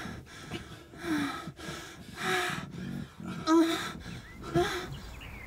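A person breathing hard in breathy gasps about once a second, several with a short voiced sound, the loudest about three and a half seconds in.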